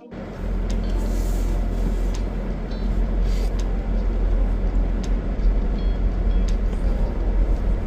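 Motor vehicle running, a steady low engine and road rumble. The sound drops out for a moment at the very start.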